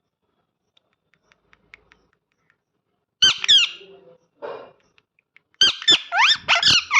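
Parrot squawking: two sharp calls about three seconds in, a lower, rougher call after them, then a quick run of squawks gliding up and down in pitch near the end.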